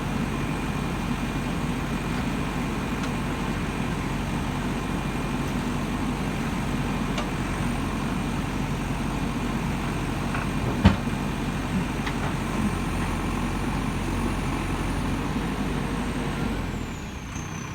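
Diesel engine of a JCB 3DX Super backhoe loader running steadily under work, with a sharp knock about eleven seconds in and a few lighter clicks. Near the end the engine eases off and a high whine falls in pitch.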